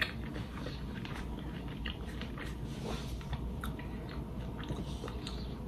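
A person chewing a mouthful of soft, cheese-covered fries, with faint mouth clicks every half second to second. One sharper click comes right at the start.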